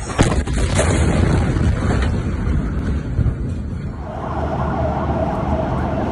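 Amateur phone recording of the huge ammonium nitrate explosion at Beirut's port: a sharp blast just after the start, then continuous loud rumbling and roaring. A steady tone comes in about four seconds in.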